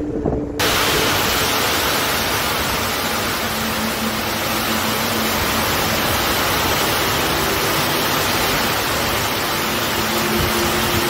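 Heavy rain pouring down in a loud, steady hiss that starts abruptly about half a second in.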